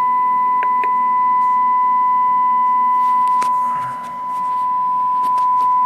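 Steady 1 kHz test tone from the test set's audio generator, injected as modulation into a Cobra 29 NW LTD CB radio while its transmit power is read. The tone dips briefly about four seconds in, and a couple of faint clicks sit under it.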